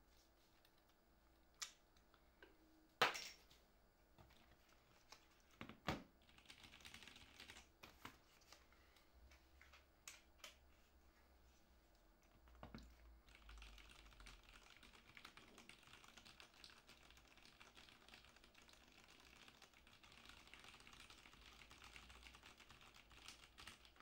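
Faint, fast typing on a Ducky One 3 Mini mechanical keyboard, a dense run of key clacks starting a little past halfway. Before it, a few scattered knocks and clicks as the keyboard is handled, the sharpest about three seconds in.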